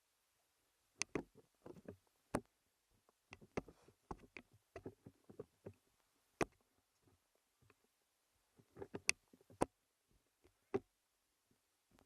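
Irregular sharp clicks and knocks, scattered in small clusters with short gaps between them.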